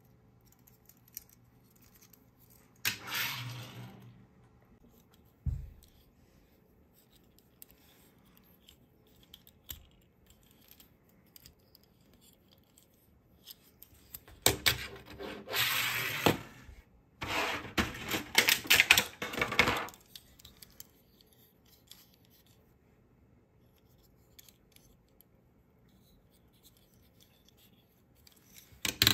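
Die-cast toy cars handled in the fingers: plastic and metal rubbing and clicking. There is a short burst about three seconds in, a soft low knock soon after, and two longer stretches of rubbing around the middle, with quiet between.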